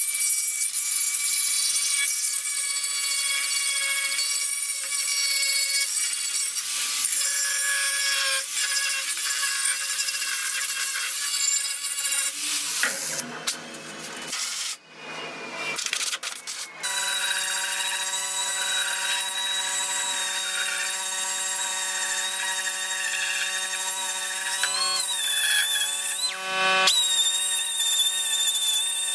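Electric power tool running and working bamboo root, a steady high whine with grinding noise. About halfway through it drops away and breaks up for a few seconds, then comes back as a steadier whine with a lower tone under it.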